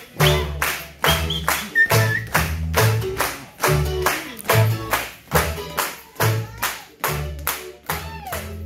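Bluegrass band playing an upbeat fiddle tune over a pulsing bass line, with sharp, steady taps on the beat from a dancer's hard-soled shoes flatfooting on a concrete floor.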